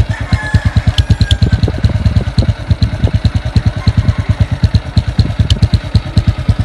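Honda RS125 Fi's 125 cc single-cylinder four-stroke engine idling through an aftermarket Apido exhaust pipe fitted with a silencer, with a steady, even exhaust beat.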